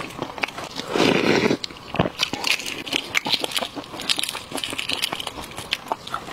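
Eggshell of a five-spice 'live bead' (partly developed fertilized egg) crackling as gloved hands break it open and peel it, a run of many small clicks with a louder rustle about a second in.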